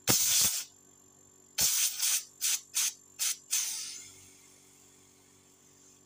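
Air hissing out of a refrigerator's open suction line in a string of short blasts, the first and last the longest, while the Jiaxipera NS1119Y compressor runs. Air blowing straight out of the suction point is the sign that the condenser, capillary and evaporator circuit is not blocked.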